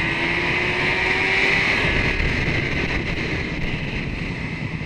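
Kawasaki ZX-10R's inline-four engine running hard down a track straight, its pitch climbing slowly for about the first second and a half, under loud wind rush on the microphone.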